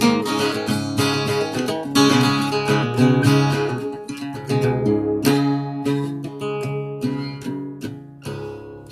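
Solo guitar played in quick plucked notes and strummed chords, getting quieter toward the end.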